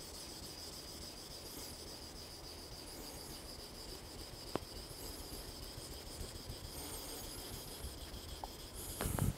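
Faint scraping of a kitchen knife's edge stroked across a wet Aizu nakatoishi (middle-grit) natural whetstone in its slurry, during the last sharpening passes. A steady high-pitched whine runs underneath, and there is one sharp click about halfway through.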